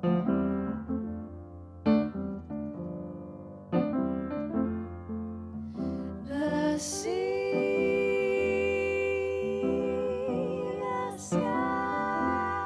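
Piano playing a repeating jazz vamp of struck chords. About halfway through, two women's voices enter and hold long notes in harmony over it, wavering with vibrato near the end.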